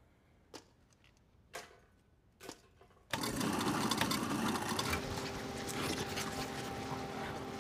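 Three soft knocks about a second apart, then a waste-disposal machine starts abruptly about three seconds in and runs with a loud, steady whirring, a steady hum joining under it soon after.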